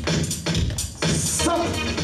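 Dance music with a steady beat playing over a sound system, dipping briefly about a second in.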